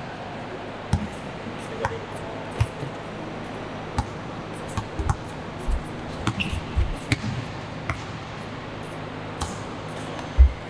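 Basketball bouncing on a hard court: scattered low thumps and sharp slaps at irregular intervals, the loudest near the end, over a steady low hum.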